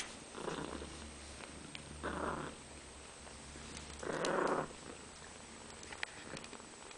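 Domestic cat purring close up, swelling three times about two seconds apart with each breath over a low rumble; it is the mother cat purring while her kittens nurse.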